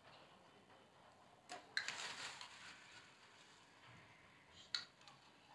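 Metal spoon clinking and scraping against glass while scooping ghee. Two faint sharp clicks come about a second and a half in, followed by a short scrape, and another click comes near the end.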